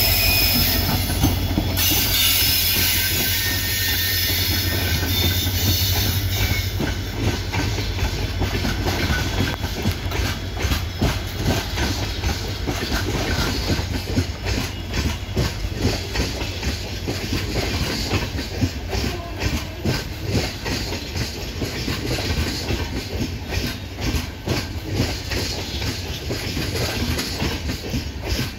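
WDP4D diesel locomotive passing close by with its engine running, then a rake of LHB passenger coaches rolling past on an arriving express. The wheels give a steady, regular clickety-clack over the rail joints.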